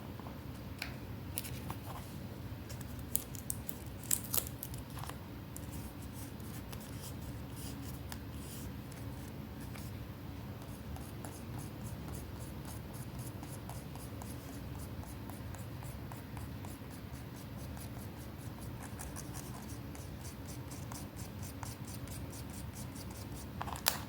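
Paper crafting by hand: rapid, light scratching strokes on paper, with a few sharper clicks about four seconds in and again just before the end.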